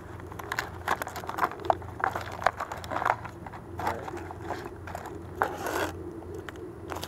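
Cardboard packaging being handled as earphones are worked free of a small box and its folding insert: irregular scraping, crinkling and light taps, with a longer rustle near the end.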